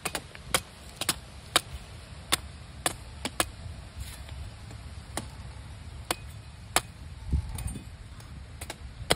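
A machete chopping the husks of green coconuts: a dozen or more sharp strikes at uneven intervals, some of them loud, over a low steady rumble.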